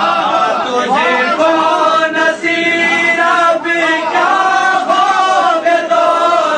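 A man's voice chanting a verse melodically, holding long notes that waver and bend.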